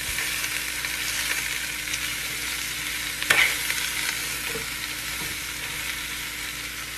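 Chopped cabbage frying in hot olive oil and browned onions in a pan, a steady sizzle, with leaves rustling as they are dropped in and broken up by hand. A brief louder crackle comes a little over three seconds in.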